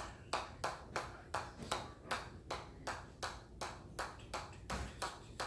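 Hammer striking metal over and over at about three blows a second, each blow a sharp ping.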